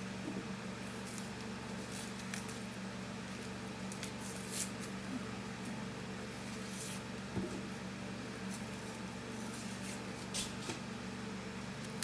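Quiet food-prep handling at a kitchen counter: a few light taps and scrapes, spaced several seconds apart, over a steady low hum.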